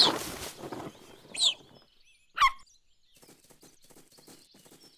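A sudden rush of rustling leaves and flapping wings as a cartoon owl takes off, fading within half a second. Then two short, bird-like whistles falling in pitch, about a second apart.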